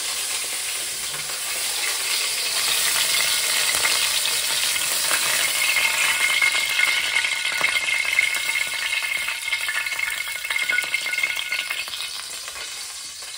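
Cornstarch-coated chicken pieces sizzling and crackling in hot oil in a frying pan, swelling a little through the middle and easing off near the end.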